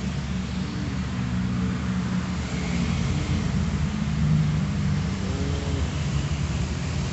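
Steady low background rumble, of the kind a running engine or nearby traffic makes, with no speech.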